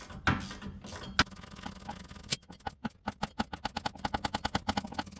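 A 3/8-drive socket ratchet, with a couple of knocks, then from about halfway a fast, even run of pawl clicks as a loosened hub-assembly mounting bolt is backed out.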